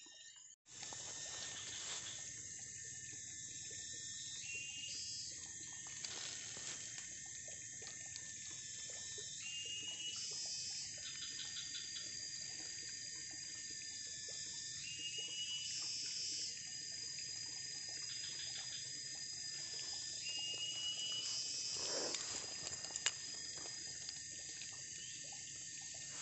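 Wetland ambience: a steady high hiss with a thin, constant whine, and short chirping calls that repeat about every five seconds.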